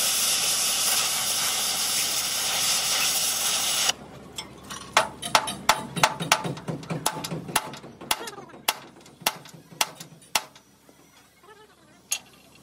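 Oxy-fuel torch flame hissing steadily on a steel truck chassis spring hanger; the hiss cuts off about four seconds in. A series of sharp knocks follows, about two a second, thinning out and stopping, with a last single knock near the end.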